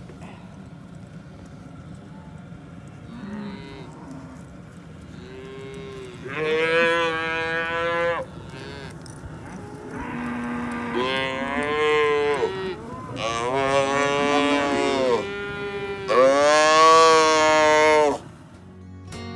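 A calf bawling in several long calls while it is heel-roped and pinned on the ground for branding; the loudest call comes near the end.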